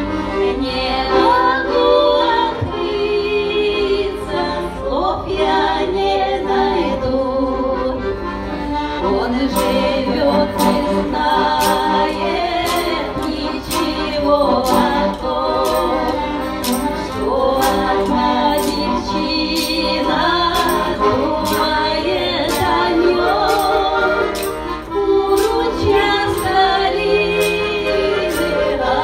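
Russian folk song performed live: women's voices singing over an accordion accompaniment. From about a third of the way in, a tambourine strikes on the beat.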